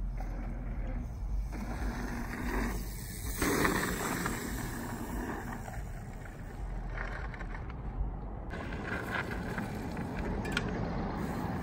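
Bicycle tyres rolling and scrubbing over packed dirt, over a steady low rumble of wind on the microphone.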